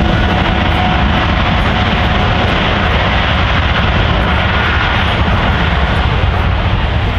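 Boeing 777 jet engines running on the runway: a loud, steady roar with a heavy low rumble and a faint whine that fades out a couple of seconds in.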